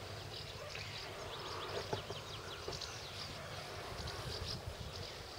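Small birds chirping repeatedly in short, quick notes over a low, steady rumble of wind on the microphone.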